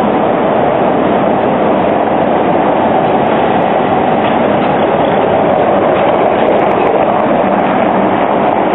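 Škoda ForCity low-floor articulated tram approaching on street track and passing close by: steady running noise of its wheels on the rails and its running gear.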